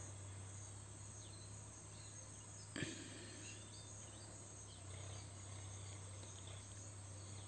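Faint outdoor background: a steady low hum with a few faint high chirps, and one short knock about three seconds in.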